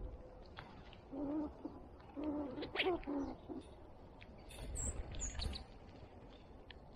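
A bird gives a low cooing call: one note, then a run of several shorter notes. A few high chirps from small birds follow about five seconds in.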